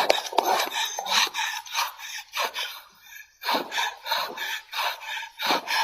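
A man panting hard: quick, rasping breaths, about two or three a second, with a short pause about three seconds in, the breathing of someone out of breath and frightened, with a sore chest.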